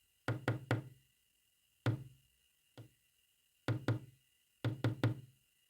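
Sharp knocks on a hard, resonant surface, in a code-like pattern: three quick knocks, a single knock, a fainter single knock, then two more quick groups of three.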